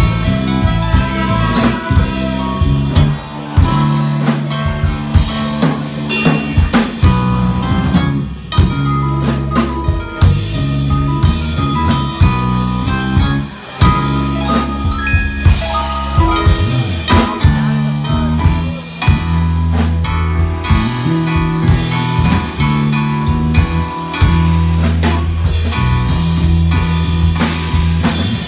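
Live band playing an instrumental passage: electric bass, drum kit and keyboards, with a trombone at the start.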